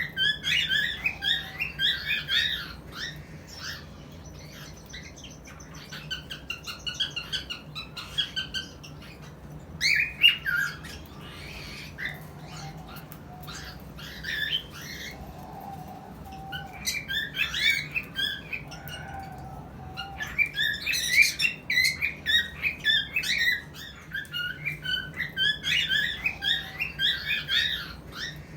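Cockatiel mating call: rapid bouts of short chirps and whistles, with brief pauses between the bouts.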